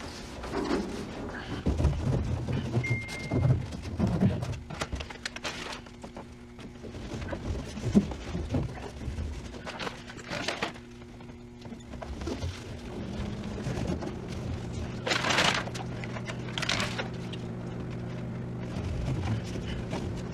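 Hand knocks and thuds on the sheet-metal cab roof of a VW Caddy Mk1 pickup, now lined with sound-deadening mat, testing how much the panel's tinny ring has been damped. The knocks come at irregular intervals over a steady low hum.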